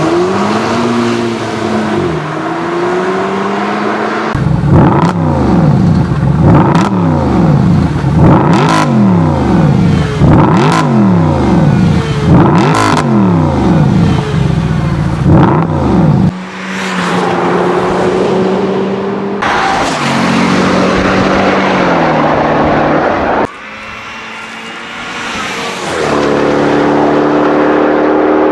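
Performance car engines in quick succession, changing abruptly several times. In the longest stretch one engine is revved again and again, rising and falling, with a sharp crack at the end of several revs. The later clips hold steadier running and a slowly rising engine note near the end.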